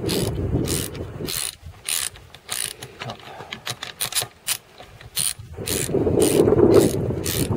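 Ratchet wrench clicking in steady strokes, about two clicks a second, as it tightens the mounting bolts of a rail-mounted weighing transducer. A low rumble sits underneath at the start and again near the end.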